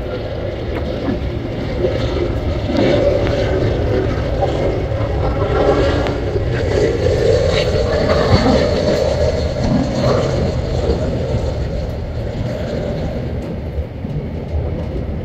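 Jet engines of an Airbus A321 airliner on final approach: a steady rumble that grows louder toward the middle and eases off near the end.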